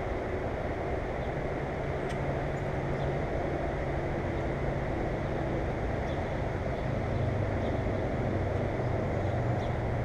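Steady low hum and rumble of a distant motor, its pitch dropping slightly about seven seconds in, with a few faint short high chirps over it.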